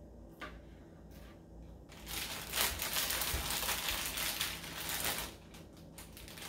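Two light knife taps on a plastic cutting board, then a thin plastic produce bag crinkling and rustling loudly for about three seconds as a hand reaches in and pulls grapes off the bunch.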